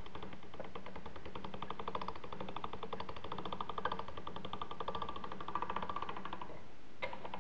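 Hand-cranked pasta machine's rollers and gears turning as a sheet of dough is fed through at the widest setting, making a fast, even clicking. The clicking stops near the end, followed by a single click.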